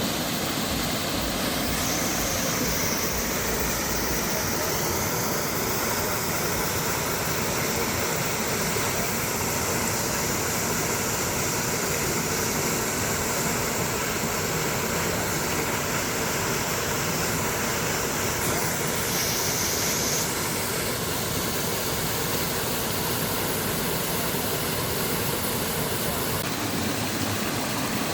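Water rushing steadily through a traditional water mill, a continuous wash of sound whose high end shifts abruptly a few times.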